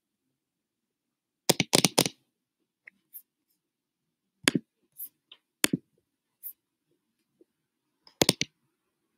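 Scattered sharp clicks and taps: a quick run of about four about a second and a half in, a few single ones in the middle, and a pair near the end.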